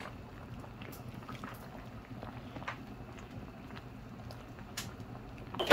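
Pot of crab soup with flour dumplings simmering on the stove: faint steady bubbling, with a few soft ticks and a sharper knock near the end.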